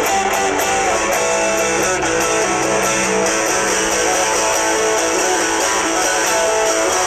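Electric guitar, a Squier Stratocaster, played through a pocket-sized 3-watt battery-powered mini amp with a 3-inch speaker. It plays sustained distorted notes and chords, with a string bend about two seconds in.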